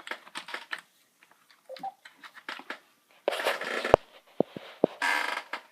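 Rummaging for small parts: rustling and crinkling of plastic bags or packaging, with two longer crinkly bursts and a few sharp clicks and knocks of small hard items.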